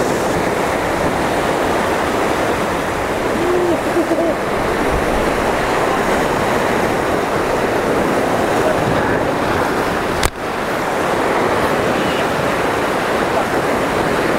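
Ocean surf breaking and washing over shoreline rocks, a steady rush, with a short click and dip about ten seconds in.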